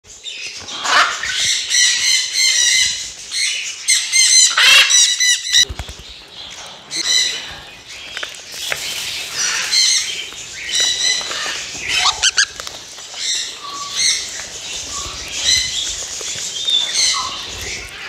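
Parrots squawking and chattering, many harsh calls overlapping, with a few sharp clicks in between.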